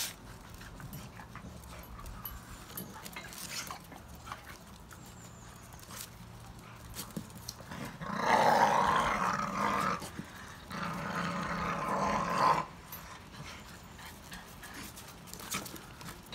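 Staffordshire bull terriers play-growling while tugging a rope toy, in two rough bouts of about two seconds each in the second half, with quieter stretches and small clicks around them.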